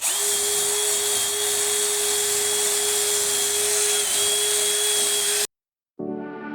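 Electric power tool motor running at a steady speed, a constant whine over a hiss, with a brief dip in pitch about four seconds in; it cuts off suddenly, and music starts near the end.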